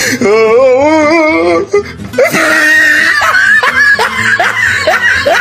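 A person laughing over music, the laugh drawn out and wavering at first, then coming in short repeated bursts.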